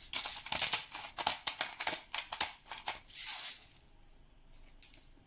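Black pepper grinder being twisted over a salad: a run of quick, gritty crunching clicks for about two and a half seconds, then one shorter burst of grinding around three seconds in.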